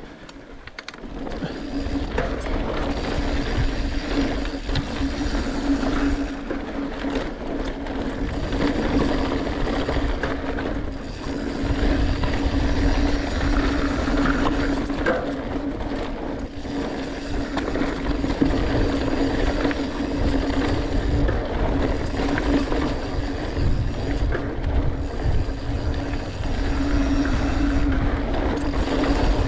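Norco Torrent Steel mountain bike rolling down a dirt singletrack trail: a continuous rumble of tyres and wind on the microphone, scattered knocks and rattles over bumps, and a steady humming buzz that swells and fades.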